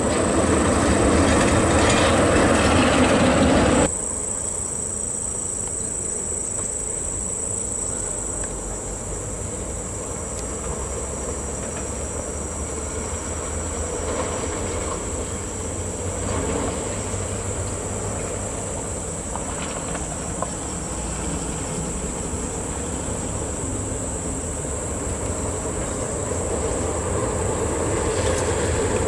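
Heavy Volvo tractor-trailer trucks rumbling by on a dirt haul road, diesel engines under load with the trailers rattling; the sound is loud at first, then drops abruptly about four seconds in to a steadier, quieter engine rumble. A steady high-pitched insect drone runs underneath.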